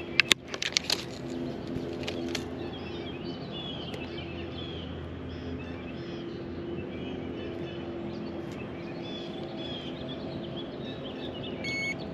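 A few sharp clicks and knocks in the first second as a fish on a lip gripper is hung from a handheld digital fish scale, then songbirds chirping over a steady low hum, and a short electronic beep from the digital scale near the end.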